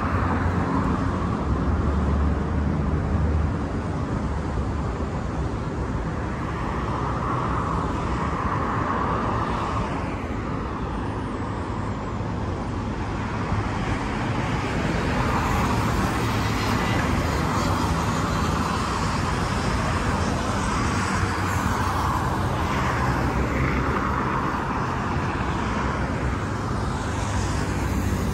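Road traffic on a multi-lane city road: steady tyre and engine noise, with cars swelling past every few seconds.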